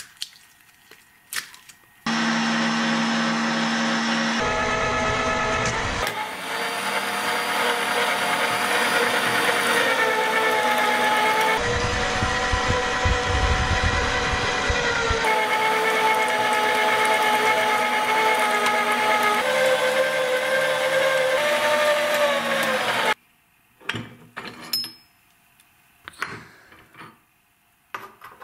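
Electric meat grinder running loudly and steadily while it grinds a block of jelly through its auger. Its tone changes abruptly several times, and it stops about 23 seconds in, followed by a few light clicks and knocks of the metal grinder parts being handled.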